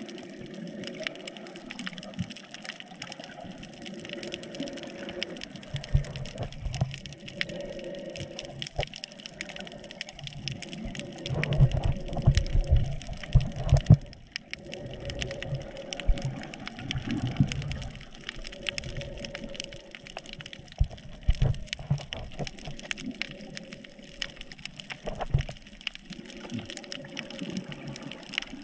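Water sound picked up through a GoPro's waterproof housing while snorkeling: sloshing and gushing water with many small crackling clicks, and heavy low thumps now and then, loudest in the middle.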